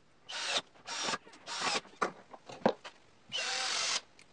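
Cordless drill running in short bursts, three quick spurts, then a steadier run of about a second near the end, drilling into the wooden workbench frame. A couple of sharp knocks come in between the bursts.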